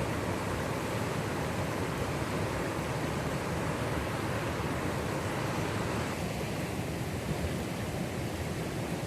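Water rushing in a steady, even wash of noise, turning slightly duller about six seconds in.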